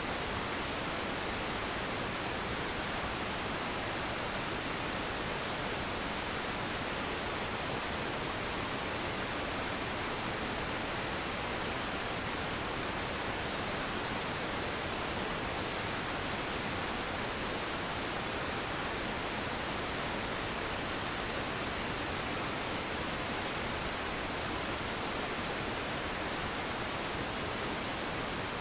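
Waterfall: a steady, unchanging rush of falling water, an even hiss with no birdsong or other events.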